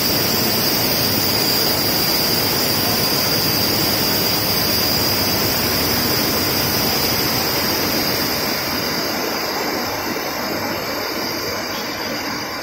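Jetspray humidification nozzles spraying mist with a steady hiss and a thin high whistle over it. The sound eases off a little after about eight seconds.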